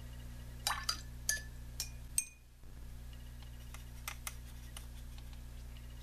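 Light clinks and taps of a paintbrush against the plastic watercolor tray and water container while watercolor paint is picked up and mixed, a handful of short sharp knocks over a steady low hum.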